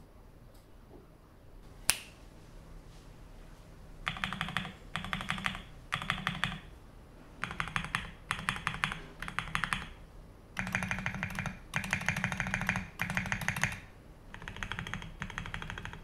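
Typing on an Akko custom mechanical keyboard: quick runs of keystrokes, each lasting about a second with short pauses between, starting about four seconds in, after a single sharp click about two seconds in.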